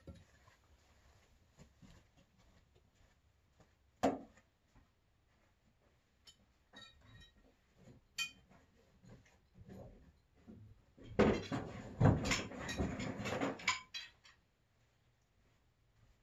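Pulk sled's tow poles and fittings being handled: a few scattered clicks and clinks, then a dense clattering run of clinks lasting about three seconds near the end.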